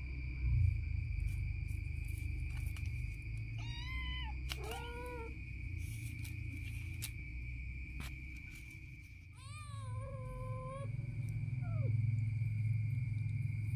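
Domestic cats meowing: two short meows in quick succession about four seconds in, then a longer meow about ten seconds in that drops in pitch at the end. A steady high whine and a low rumble run underneath.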